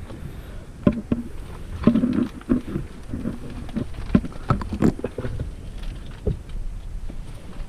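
Irregular knocks, clicks and scuffs over a low rumble of handling noise on the microphone: a person clambering and handling things among rocks with the camera. The knocks are densest around two seconds in.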